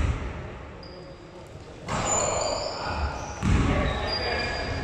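Basketball game on an indoor court: the ball bouncing with dull thuds, at the start and again more strongly about three and a half seconds in, amid short high squeaks of sneakers and indistinct players' voices in a large hall.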